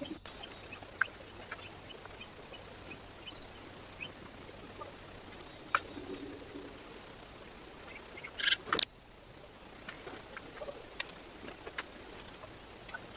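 Small animals at a bird feeder: scattered light taps and clicks, with a brief louder scuffle and a sharp click a little before nine seconds in.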